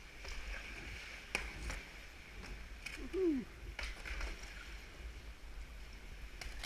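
Water splashing and lapping around a sea kayak as it is paddled, with scattered sharp splashes or drips over a steady wash. About three seconds in, a short pitched call rises and then falls.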